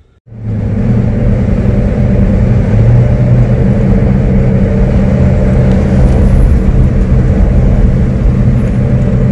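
A vehicle engine runs with road noise: a steady low drone and hum that cuts in suddenly just after the start and holds level throughout.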